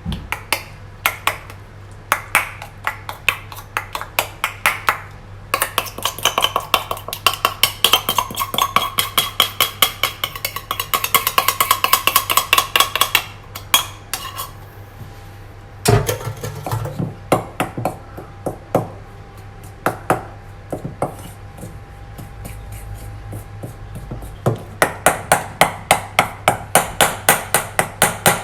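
Chocolate sponge batter being mixed by hand in a bowl: a utensil strikes the side of the bowl in quick rhythmic clinks, several a second. The clinks thin out in the middle, where there is one heavier knock, and pick up fast again near the end.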